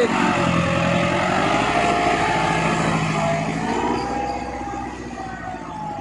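Massey Ferguson 375 tractor's diesel engine labouring steadily under heavy load, pulling a 13-tine cultivator with the hitch lever fully down so the tines cut at full depth. The engine grows fainter in the last couple of seconds as the tractor pulls away.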